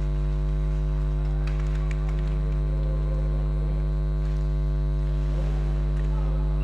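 Steady electrical mains hum, a low buzz with many overtones, the loudest sound throughout. A few faint clicks come through it about one and a half to two seconds in.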